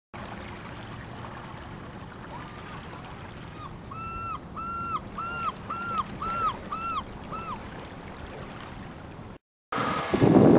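A bird calling a run of about eight short, clear notes, each rising, holding and falling, about two a second, over a steady background rush. Near the end the sound cuts out briefly and a much louder rushing noise starts.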